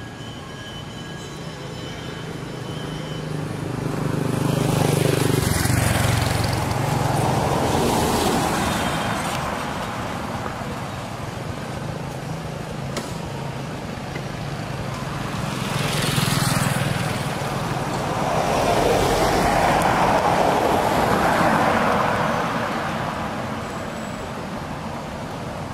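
Road vehicles driving past close by on asphalt, engine hum and tyre noise swelling and fading away twice.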